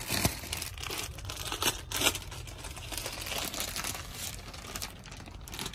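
Plastic saree packaging and a paper catalogue sheet crinkling and rustling as they are handled, with a few sharper crackles in the first two seconds.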